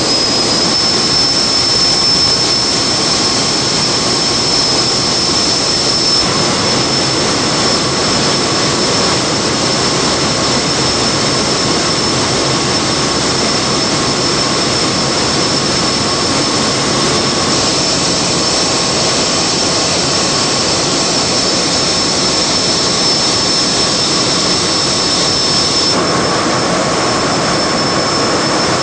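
Steady, loud din of giant gas engines running in a steel-mill engine house: a dense, unbroken machinery roar with a steady high-pitched whine over it.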